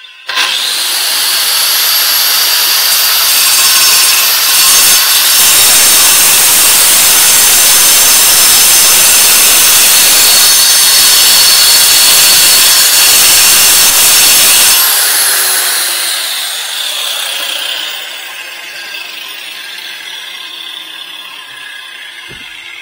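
Hikoki angle grinder cutting a notch into a paving slab: it starts with a rising whine, grinds through the stone loudly for about fifteen seconds, then is switched off and its whine falls away over several seconds as the disc coasts down.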